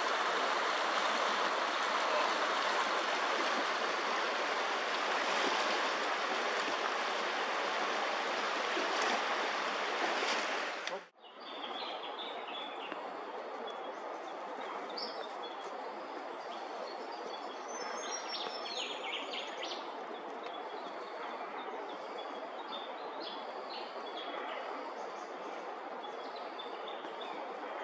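A swollen, fast-flowing river rushing loudly and steadily; it cuts off suddenly about eleven seconds in. After that a quieter steady background is broken by scattered short bird chirps.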